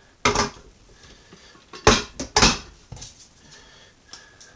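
Glass slow-cooker lids and serving spoons being set onto the crock inserts: sharp clinks and knocks, three louder ones in the first two and a half seconds, then a few lighter taps.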